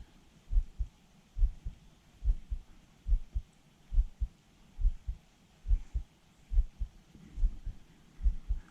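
Dull, low thumps in a steady rhythm, in pairs a little more than once a second.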